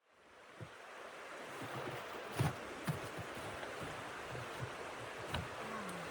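Steady rushing wind that fades in from silence at the start, with a few sharp knocks and thumps over it and a short falling low tone near the end.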